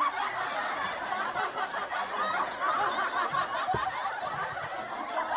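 People laughing and chuckling, with some giggling mixed in.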